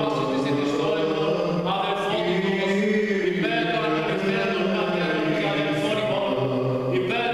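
Greek Orthodox Byzantine chant: voices singing an unaccompanied Greek hymn, the sung line held and moving slowly from note to note.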